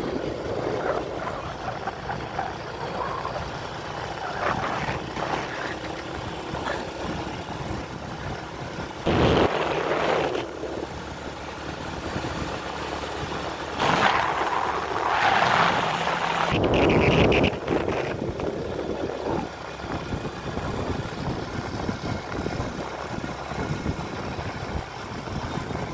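A vehicle running along a road, heard from on board: a steady engine and road rumble, with two louder rushes of noise partway through.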